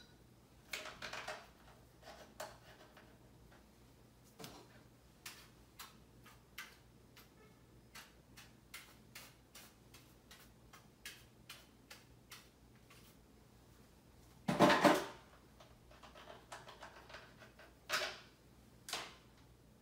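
Small clicks and taps of objects being handled at a bathroom counter. There is one louder clatter about two-thirds of the way through and two sharper knocks near the end.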